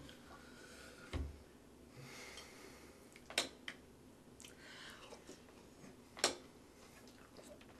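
Quiet tabletop eating sounds: a dull thump about a second in as a container is set down on the wooden table, then a few sharp clinks of a spoon against a cereal bowl.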